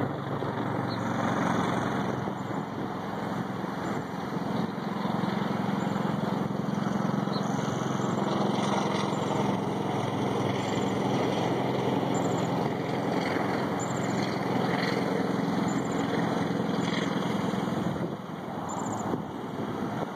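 A steady engine hum with a low, even drone that eases off about eighteen seconds in.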